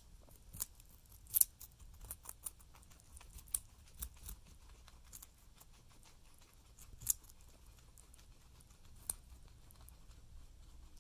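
Guinea pigs biting and chewing raw carrot: an irregular run of crisp crunches, the sharpest about a second and a half in and again about seven seconds in.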